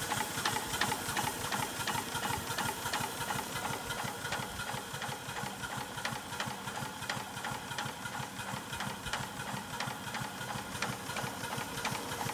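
A 3-inch scale Fowler R3 steam traction engine running at low speed on its new crankshaft, a fast, even clatter of exhaust beats and moving parts over a steady steam hiss from the chimney blower. The slow running is to free up the new crankshaft.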